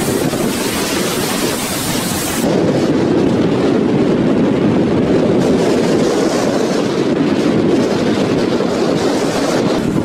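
Steady noise of a boat under way, its motor and the water mixed with wind buffeting the microphone. About two and a half seconds in, the high hiss drops away and a steadier, lower rumble takes over.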